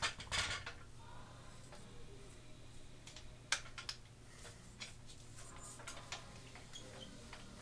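Handling noise from a camera being picked up and moved closer: a few sharp clicks and knocks, the loudest about half a second in and another about three and a half seconds in, with smaller taps after, over a faint steady hum.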